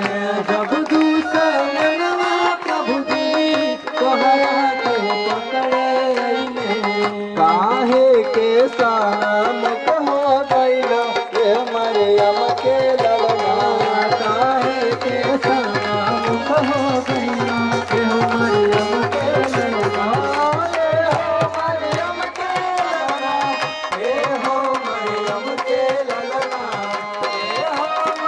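Devotional worship song: a hand drum keeping a steady beat under a melody with singing voices.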